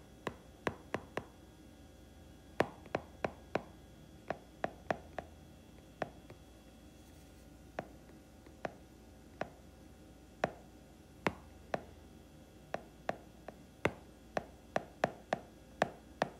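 A stylus tip tapping and clicking against a tablet's glass screen while handwriting: irregular sharp taps, often several a second in quick clusters, with short pauses between words.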